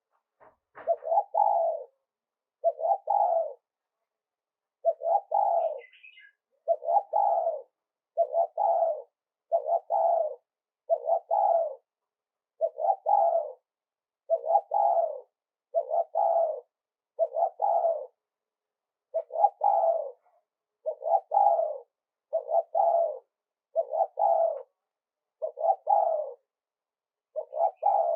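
Spotted dove cooing: the same short multi-note phrase repeats about once every second and a half.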